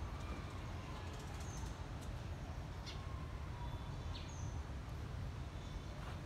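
Birds chirping faintly and intermittently in short high notes, over a steady low rumble.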